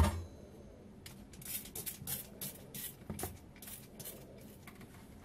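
A thump at the very start, then a quick run of about a dozen short spritzes from a hand trigger spray bottle, several a second, over about three seconds.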